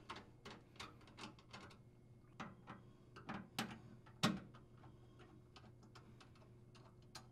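Flathead screwdriver loosening a screw in a garbage disposer's metal mounting bracket: faint, irregular clicks and ticks of the blade on the screw head and bracket. They thin out after about four and a half seconds.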